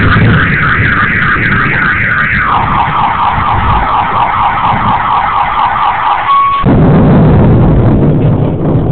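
Car alarm sounding, a warbling siren that repeats about three times a second, steps down to a lower pitch partway through, then gives a short steady beep and cuts off. A loud low rumbling noise takes over after it stops.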